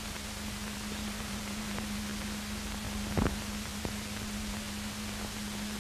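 Steady hiss and a low, even hum from an old film soundtrack, with a single click about three seconds in.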